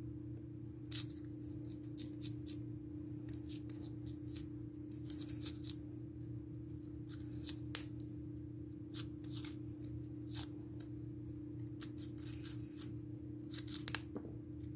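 A small knife scraping and cutting the brown skin off a piece of cassava, in quick, irregular strokes, over a steady low hum.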